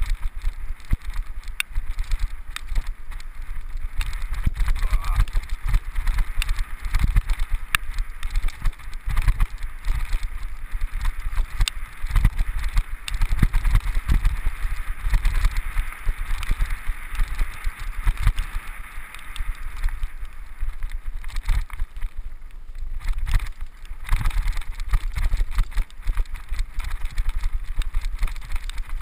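Mountain bike riding down a grassy dirt trail: tyres rolling over rough ground with the bike rattling and clicking over bumps, and wind rumbling on the microphone. Briefly quieter about three-quarters of the way through.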